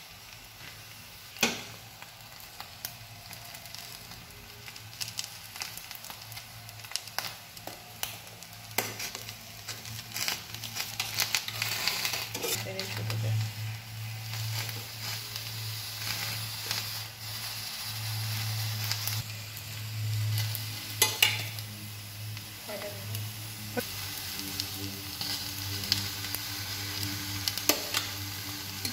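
Fried rice and chicken Manchurian sizzling and crackling on a hot sizzler plate lined with cabbage leaves, the sizzle growing louder about ten seconds in. A few sharp clinks of a metal spoon against the plate.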